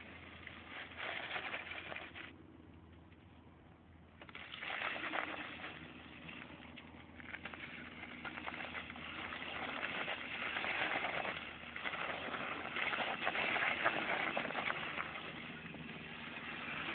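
Small engine of a mini dirt bike running as it is ridden over dirt, swelling and fading in loudness, with a quieter stretch about two seconds in.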